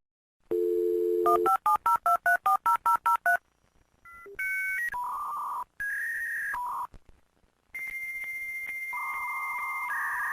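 Dial-up modem connecting over a phone line: a dial tone, then a quick run of about a dozen touch-tone dialing beeps, then a series of held electronic tones and a long steady high tone as the modems begin their handshake.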